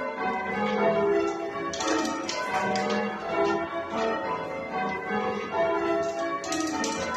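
Church bells being change-rung, one bell after another in quick, even succession, each stroke ringing on under the next.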